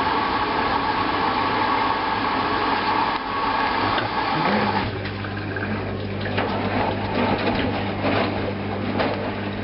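Hoover washing machine running: a steady whine through the first half fades out, and about halfway through a low steady hum starts with a short rise in pitch, over water sloshing and small clicks.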